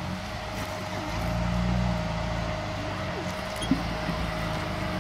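Jeep's engine running at crawling speed as it climbs over rocks, pulling harder from about a second in. One sharp knock a little past the middle.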